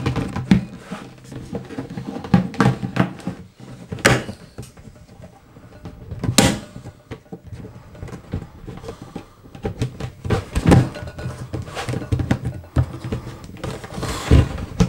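Hollow plastic knocks, clicks and rattles from a Rotho cat litter box being handled and its parts fitted together. The knocks are irregular, with the sharpest about four and six and a half seconds in.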